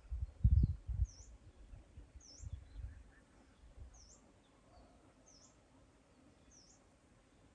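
A small bird calling, a short high chirp that dips and rises, repeated about once a second. A few low thumps in the first three seconds, the loudest about half a second in.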